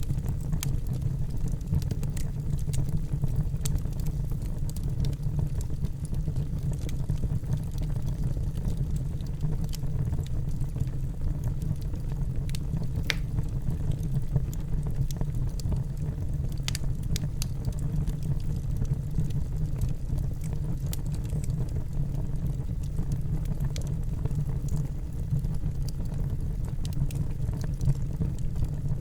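Wood fire burning in a fireplace: a steady low rumble of the flames with scattered sharp crackles and pops, a few louder ones.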